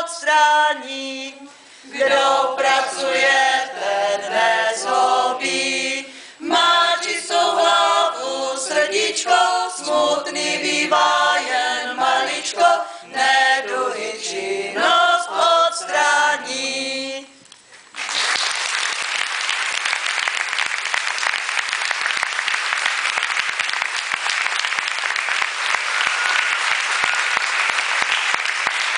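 A small mixed group of women and men singing a song together in unison, then about two-thirds of the way in the singing ends and audience applause starts and keeps going steadily.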